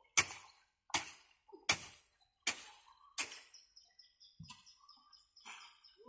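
Shovels striking and scraping into a heap of wet concrete mix on brick paving during hand mixing: five sharp strikes at an even pace, about one every three-quarters of a second. After about three and a half seconds a thin high tone comes and goes.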